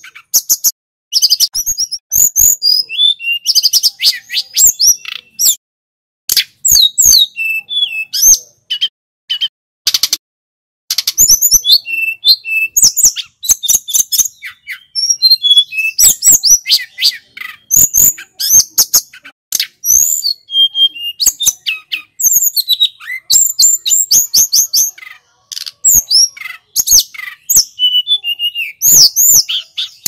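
Hill blue flycatcher (tledekan gunung) singing: phrase after phrase of high, quick whistled notes sliding up and down, with short pauses between them.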